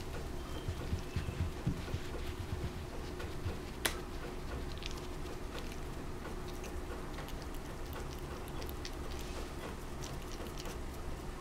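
A puppy mouthing and nibbling at a person's fingers: faint small clicks and ticks, with one sharper click about four seconds in, over a steady low rumble.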